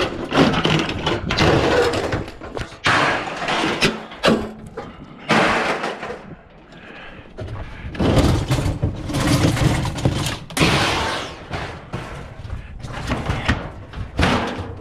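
Scrap appliances and sheet-metal panels being dragged and pulled off a trailer by hand: an irregular run of metal scrapes, clatters and bangs.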